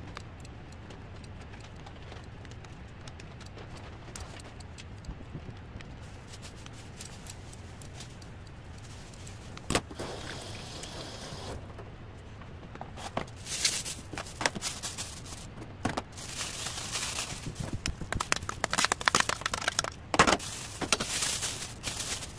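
Kitchen scissors snipping a thin frozen sheet of grated garlic into small pieces, with faint crisp cuts. From about halfway, a plastic bag crinkles and rustles as the frozen pieces go into it.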